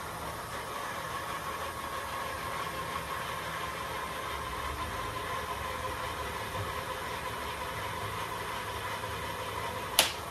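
Aostirmotor S07-B e-bike's electric motor, at assist level five, spinning its wheel free of the ground at a steady speed, giving a steady whine. A sharp click comes near the end.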